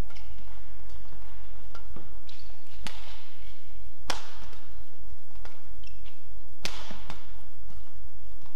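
Badminton rackets striking a shuttlecock in a rally: sharp cracks about three seconds in, a second later, and again near seven seconds, each with a brief echo, plus a couple of fainter knocks earlier.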